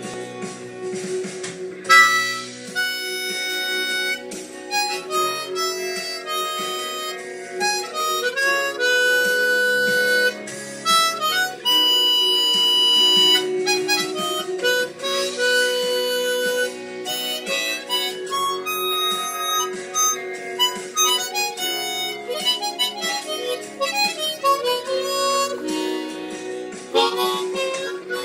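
Diatonic harmonica in B playing a melodic line of held and short notes over a guitar backing track, coming in about two seconds in.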